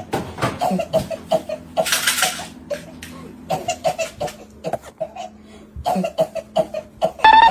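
A person coughing, mixed with laughter, in a run of short bursts, with one harsh noisy cough about two seconds in. A rising whistle-like tone comes near the end.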